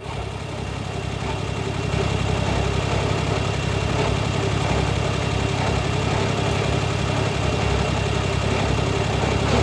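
Suzuki Jimny JA71 running, a steady mechanical drone with a fast low pulsing that builds over the first couple of seconds, carrying the abnormal noise that the owner traces to the differential.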